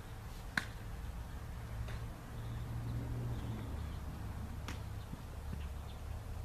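Outdoor ambience: a steady low rumble, with one sharp click about half a second in and a fainter one near the five-second mark.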